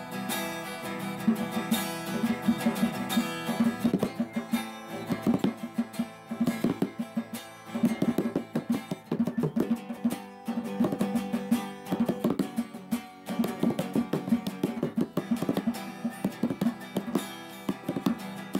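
Background music carried by a plucked guitar, with notes picked in quick, steady succession.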